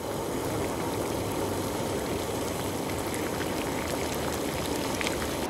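Dark caramel braising sauce boiling in a pot around duck: a steady bubbling with scattered small pops.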